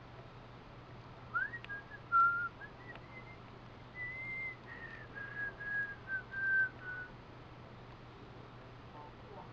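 A person whistling a short tune: a string of held notes stepping up and down in pitch for about six seconds, over a faint steady low hum.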